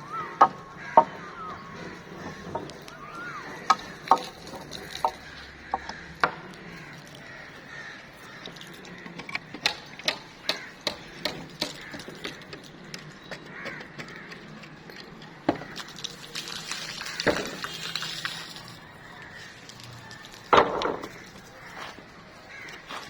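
Irregular sharp knocks and taps of building work, some in quick clusters, with bird calls in the background.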